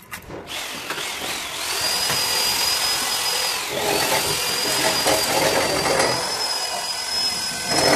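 Handheld electric power tool running, its motor whine rising as it spins up over the first second or so and then holding steady, with a brief dip in pitch a little before the middle before it picks up again.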